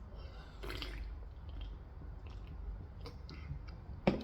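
Close-miked wet chewing and squishy mouth sounds of someone eating Korean fried chicken, with a few small clicks and one sharp click near the end.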